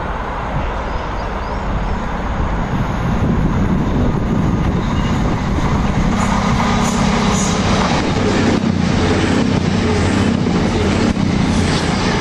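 Virgin Trains express running through the station at speed: a steady hum and rumble that builds as it nears, then rushes close past, with the wheels clattering over rail joints near the end.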